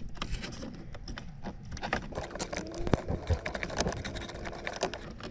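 Irregular plastic clicks and knocks as a relay is rocked and pulled out of its socket in a Mercedes 190E fuse and relay box.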